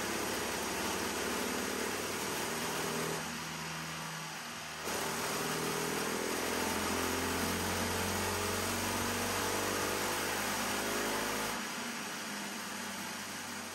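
MRE 224PH single-cylinder four-stroke kart engine running on an engine dyno during air-fuel tuning pulls. It drops back about three seconds in, picks up again near five seconds, and eases down near the end.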